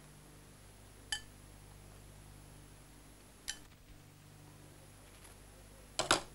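Chopsticks and porcelain bowls clinking three times during a meal, the last a quick double clink and the loudest, over a faint steady hum.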